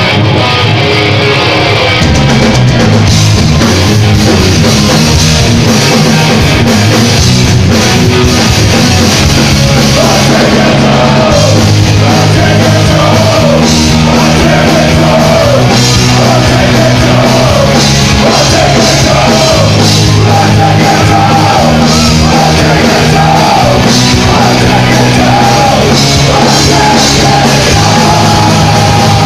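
Live rock band playing loud, close up: electric guitars, bass and drums. The full band comes in about two seconds in over the guitar, and shouted vocals join from about ten seconds in.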